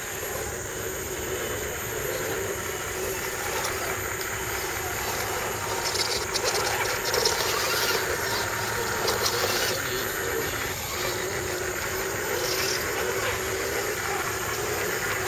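Scale RC crawler trucks' electric motors and gearboxes whining as they crawl over logs and roots. There is a spell of clattering about six to ten seconds in, over a steady high hiss.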